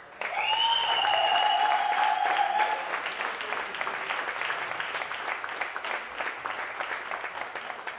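Audience applauding, the clapping loudest in the first three seconds and then easing a little. One long, high, held note rings out over the clapping during those first few seconds.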